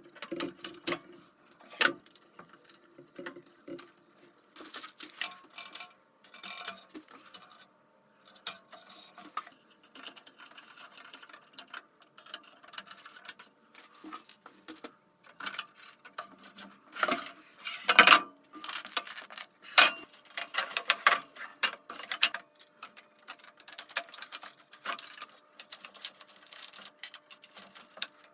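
Irregular metallic clinks, clicks and scrapes of aluminium extrusion profiles and small bolts and nuts being handled and fitted together by hand, with brief quiet gaps and a busier, louder stretch about two-thirds of the way through.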